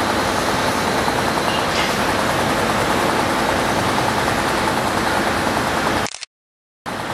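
Komatsu PC50 mini excavator's diesel engine running steadily under work, cutting off suddenly about six seconds in and coming back briefly just before the end.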